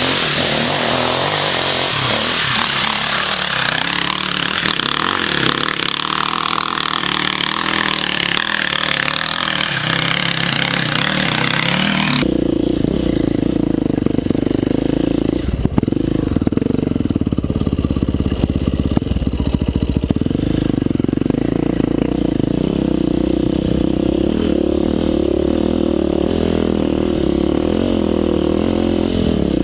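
Enduro dirt-bike engine running as the bike is ridden over a rough trail. About twelve seconds in the sound cuts abruptly to a steadier engine note with much more low end, heard up close from the helmet camera.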